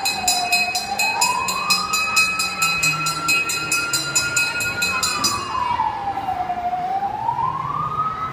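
Fire engine siren on a children's play fire truck, a slow wail that drops in pitch and climbs back twice, holding its high note for a few seconds in between. A fast high ticking runs under it and stops a little past halfway.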